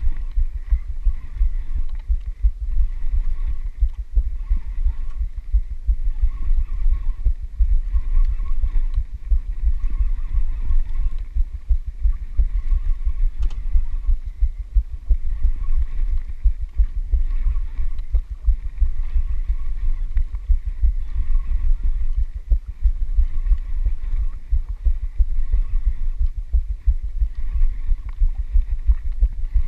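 Wind buffeting the microphone of a body-worn camera aboard an outrigger boat at sea: a loud, fluttering low rumble, with a faint higher hum underneath.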